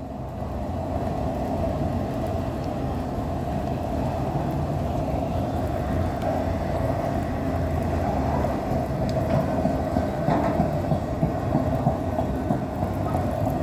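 Empty autorack freight cars rolling slowly past at about 15 miles an hour: a steady rumble of steel wheels on rail with a held ringing tone and scattered light clicks.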